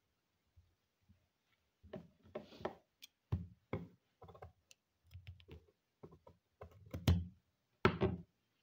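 Irregular clicks, taps and knocks of craft tools and materials being handled on a tabletop, loudest near the end.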